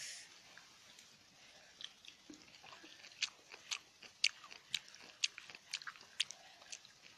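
A person chewing a mouthful of crunchy shredded green papaya salad: a run of crisp crunches, about two a second.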